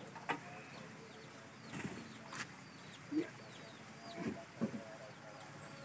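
Faint bird calls: a run of short, high, falling chirps and a few low clucks, likely from chickens, with a couple of sharp clicks.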